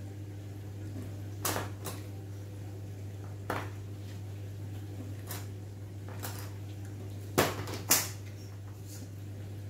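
Metal springform cake pan knocking and clicking several times as it is handled with a pot holder to unmould a baked flan, with two sharper clacks near the end. A steady low hum runs underneath.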